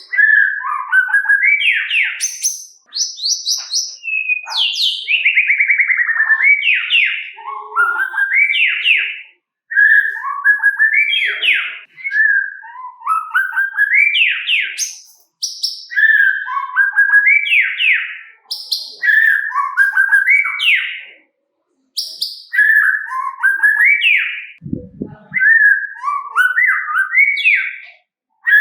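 White-rumped shama (murai batu) singing loud, varied phrases of rapid rising and falling whistles and trills, each phrase a couple of seconds long with short pauses between. A brief low knock comes about three-quarters of the way through.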